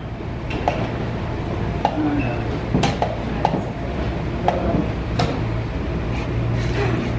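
Wooden chess pieces being set down on the board and a chess clock being pressed in quick blitz play: about seven sharp clacks at irregular intervals, over a low steady hum.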